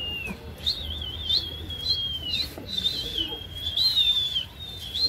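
A person whistling in long, high, wavering notes, each opening with a quick warble and sliding slightly down, about four in a row. This is the shrill whistle a pigeon flyer uses to work his flock in the air.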